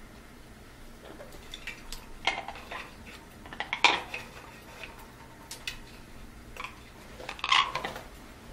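Dishes and cutlery clinking and knocking in scattered short strokes, loudest about four seconds in and again near the end.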